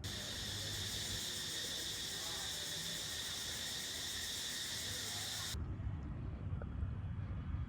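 Shrill, steady insect chorus, a dense high buzzing that cuts off suddenly about five and a half seconds in, leaving a low rumble.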